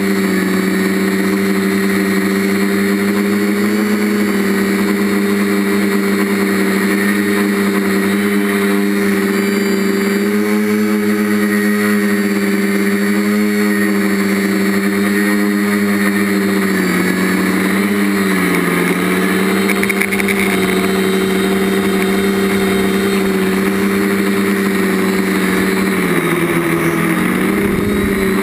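TBS Discovery quadcopter's DJI brushless motors and propellers humming steadily in flight, heard through the GoPro mounted on the frame. The pitch sags briefly about two-thirds of the way through and again near the end as the throttle eases off.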